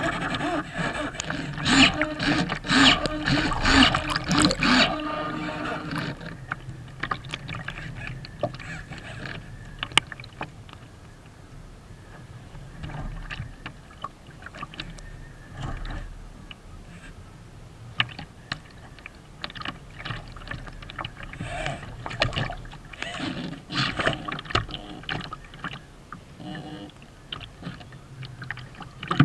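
Water splashing and slapping against the hull of a Kyosho Seawind radio-controlled sailboat in rough water, close to the onboard microphone. Dense and loud for the first five seconds, then quieter scattered splashes over a low rumble, with a busier stretch again near the end.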